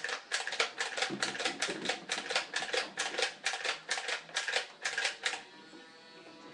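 Nerf Barricade RV-10 flywheel blaster fired in quick succession: about four or five sharp clacks a second for over five seconds over the steady hum of its spinning flywheel motors. The clacking stops near the end and the motor hum carries on alone.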